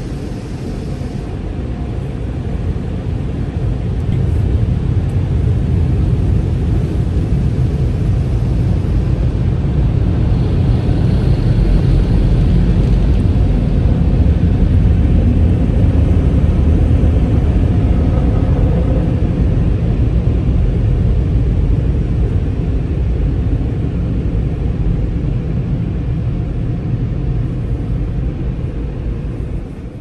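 A car wash running: a steady, dense low rumble of machinery and spray that grows louder over the first few seconds, holds through the middle and eases slightly near the end.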